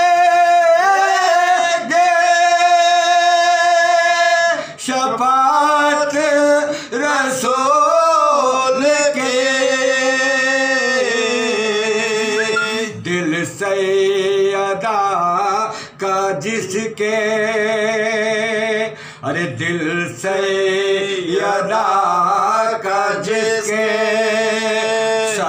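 Men singing soz, the unaccompanied elegiac chant of a majlis, in long held notes with wavering ornaments and brief pauses for breath.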